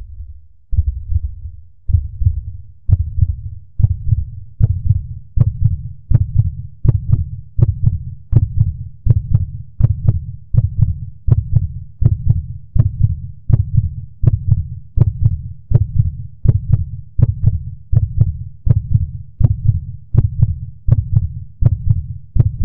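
Heartbeat sound effect: deep, heavy thumps repeating evenly a little more than once a second, fading in over the first couple of seconds.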